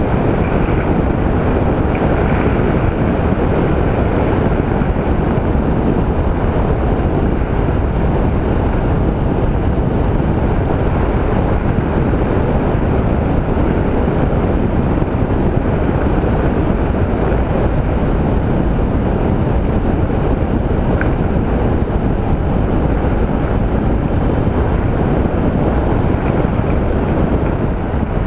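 Steady wind rush on a helmet-mounted microphone riding a Honda ST1300 motorcycle at road speed, the mic's lost windsock replaced by an improvised cover, with the bike's running and road noise beneath it.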